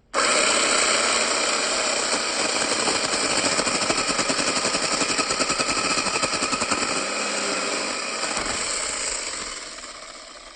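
Battery-powered 6-inch mini chainsaw starting abruptly and running hard with a fast rattling flutter, its chain cutting through a maple branch, then dying away over the last two seconds.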